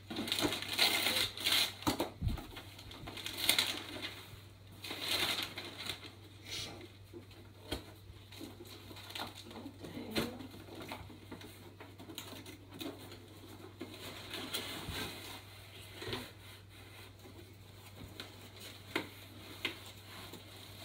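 A cardboard box and paper being handled, rustling and crinkling, with scattered light knocks and clicks; busiest in the first five seconds or so, then sparser.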